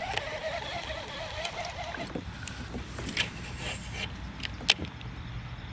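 Water splashing and sloshing around a kayak, fading about two seconds in, followed by a few sharp clicks and knocks.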